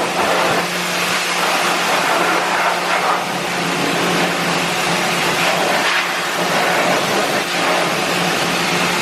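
Pressure washer running: a steady hiss of high-pressure water spraying the truck's underside over the constant hum of the washer's motor and pump.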